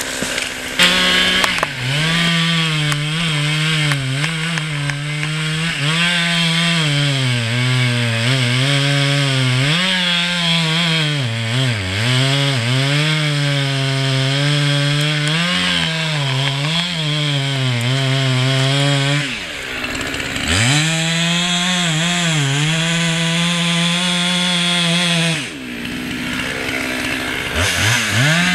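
Two-stroke chainsaw cutting through a beech trunk, its engine pitch sagging and recovering as the bar bites into the wood. The engine drops back briefly about two-thirds of the way through and again near the end, then revs up again.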